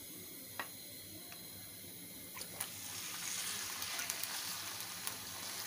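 Hot oil in a pan hissing faintly, with a click or two. About two and a half seconds in, raw chicken pieces go into the oil and a louder frying sizzle starts, full of crackles, as the pieces are stirred with a wooden spatula.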